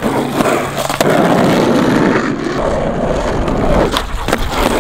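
Skateboard wheels rolling over concrete in a steady, loud gritty rumble, with a few sharp clacks of the board: one about a second in and a couple near the end.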